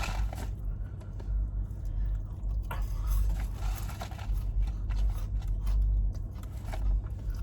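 Eating sounds inside a car: chewing, with scattered short crackles and scrapes, busiest about three seconds in, over a steady low hum.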